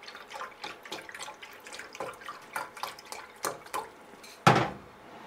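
Chicken broth pouring from a carton's spout into a glass measuring cup, in irregular gurgles and splashes. A single loud thump about four and a half seconds in.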